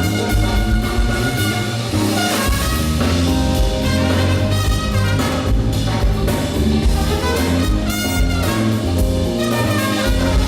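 Live funk band playing an instrumental: a saxophone and brass horn section over bass and a drum kit.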